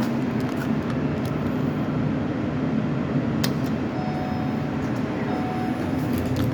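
Steady low rumble of an elevator car in motion, with two faint brief tones about four and five seconds in.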